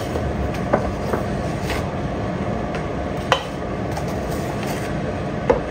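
Steady low background rumble, with a few light clicks and knocks of a plastic measuring scoop against a ceramic bowl as flour is scooped in.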